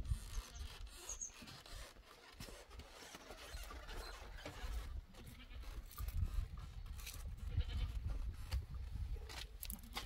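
Faint animal calls, with low rumbling and scattered knocks.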